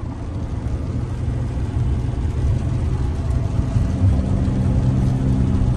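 Car driving on a rain-wet freeway, heard from inside the cabin with the windows closed: a steady low rumble of road and engine noise, with a low engine hum coming in about halfway through.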